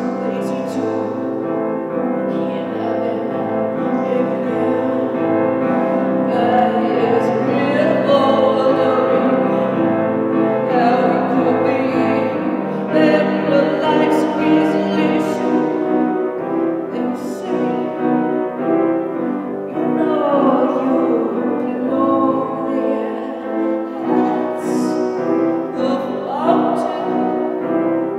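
A woman singing while accompanying herself on a grand piano, with long held notes that slide in pitch over sustained piano chords.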